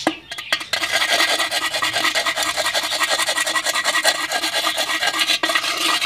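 A metal rod scraping rapidly around the rim of a hole in an unglazed clay pot, grinding the edge round. A couple of light taps come first, then a fast, continuous rasping starts about a second in and stops near the end.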